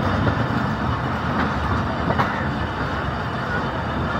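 Pakistan Railways passenger train rolling slowly into a station. Its wheels rumble steadily on the rails, with a few faint clicks about a second and a half and two seconds in.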